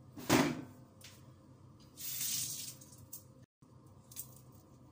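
Stainless steel pot of chicken in adobo sauce being handled: a sharp knock about a third of a second in, then a brief splashy swish of liquid about two seconds in.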